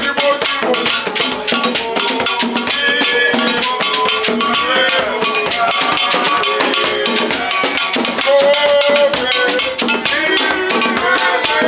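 Music with drums and a fast, steady percussion beat, with bell-like strikes and melodic lines over it.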